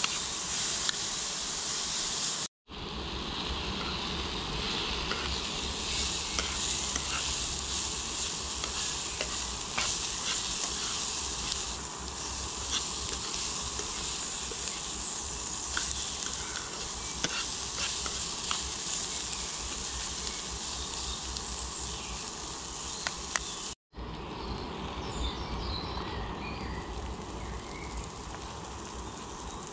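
Chorizo and onion sizzling steadily as they fry in a small pan on a gas camping stove, with scattered clicks of metal tongs turning the pieces against the pan.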